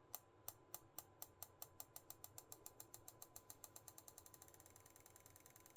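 Party flash strobe ticking faintly: each tick is one discharge of the flash tube. The ticks speed up steadily, from about four a second to about ten a second.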